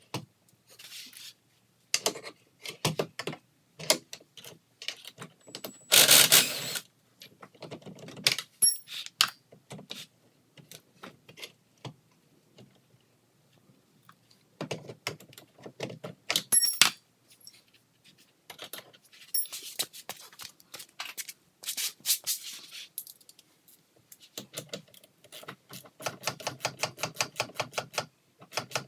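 Hand tools working on a Sea-Doo's jet pump: scattered metal clinks and knocks, with a loud rattle about six seconds in. Near the end comes a fast, even run of clicks, typical of a socket ratchet backing off the pump's bolts.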